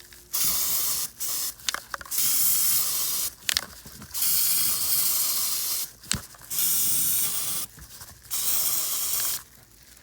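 Aerosol can of Flex Seal liquid rubber sealant being sprayed in about six separate bursts of loud hiss, each up to about a second and a half long, with a few sharp clicks in the gaps.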